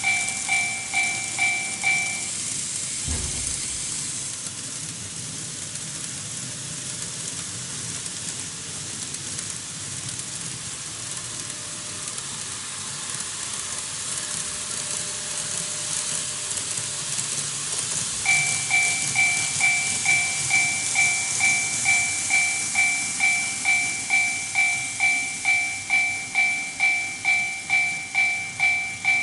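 TOMIX Automatic Crossing II model level crossing's electronic warning bell dinging in a steady two-tone pattern, about two and a half dings a second, over the steady hiss of N-gauge model trains running on the track. The bell stops about two seconds in, a short low thump follows, and the bell starts again about two-thirds of the way through as another train is detected at the crossing.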